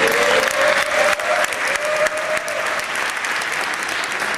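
Audience applauding: many hands clapping together, with one voice calling out over it for the first two to three seconds.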